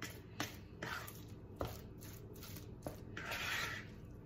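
A fork stirring a thick mix of cream cheese, chopped dill pickle and ham in a bowl: several sharp clicks as the fork knocks the bowl, and one longer scrape near the end.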